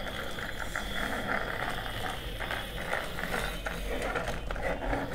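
Plastic toy car's gear mechanism ratcheting as the car is pressed and pushed along a tabletop: a rapid, even clicking over a faint steady whir.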